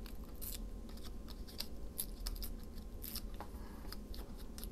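Paper being handled and worked: irregular short, crisp scrapes and rustles, bunched together about two seconds in and again near the three-second mark, over a low steady hum.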